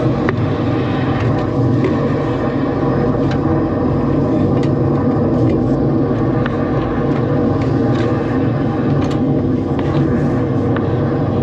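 Drain jetting machine running steadily, its engine and pump driving high-pressure water down a jetting hose to clear a blocked drain line. A few light knocks come through over it.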